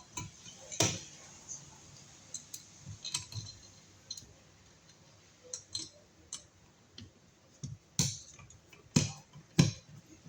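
Electrical box extension being fitted onto an outlet wall box by hand: scattered sharp clicks and light knocks of parts and hardware being handled, with a few louder knocks about a second in and near the end.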